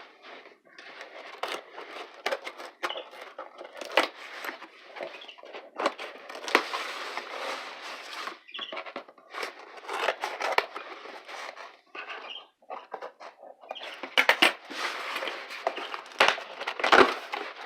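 Cardboard shipping box and its packing being opened and handled by hand: ongoing rustling, crackling and tearing, with scattered sharp knocks, the loudest about 17 seconds in.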